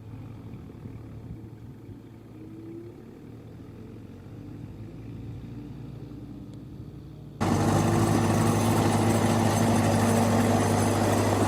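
Tractor engines running steadily. About seven seconds in, the sound cuts abruptly to a louder, closer engine with a steady hum.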